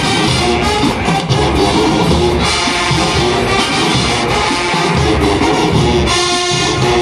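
Large marching band playing a tune on brass and woodwinds over a drum line, with sustained full-band chords and a steady beat.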